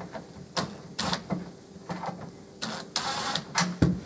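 Cordless 3/8-inch impact driver driving stainless steel hex-drive screws through a fibreglass seat pod's side: a string of short trigger bursts, with the longest and loudest run of hammering about three seconds in.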